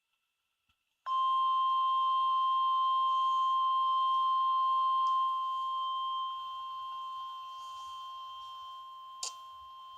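NOAA Weather Radio warning alarm tone: a single steady 1050 Hz beep held for about ten seconds, signalling that a warning message follows. It starts about a second in and grows quieter in steps through its second half, with one sharp click near the end.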